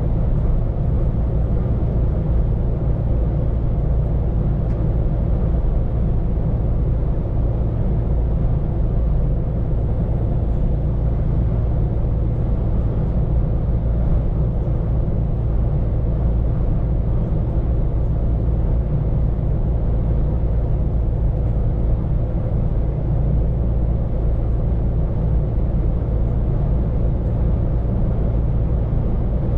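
Scania P410 truck under way, heard from inside the cab: a steady low engine drone and road rumble that holds even throughout.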